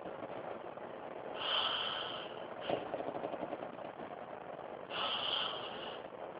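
A man snoring: two raspy, hissing breaths about three and a half seconds apart, each lasting about a second, with a short sharp snort between them.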